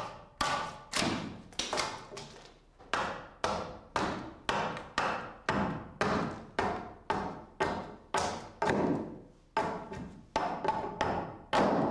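A traditional axe hewing a pine ski blank: the blade strikes the wood in a steady series of sharp chops, about two a second.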